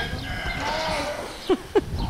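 A farm animal calling: one drawn-out call that rises and falls, then two short falling calls near the end.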